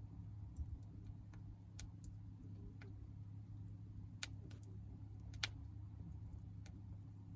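Small wood campfire crackling: sparse, irregular sharp pops and snaps, the loudest about four and five and a half seconds in, over a low steady hum.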